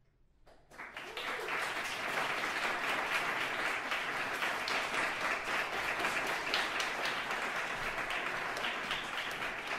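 Audience applauding: many hands clapping, breaking out about a second in after a brief quiet and holding steady.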